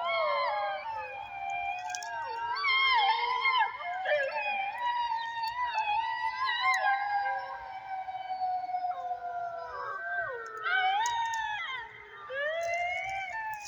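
A chorus of several animals howling at once: many overlapping, wavering howls that slide up and down in pitch, easing briefly near the end before rising again.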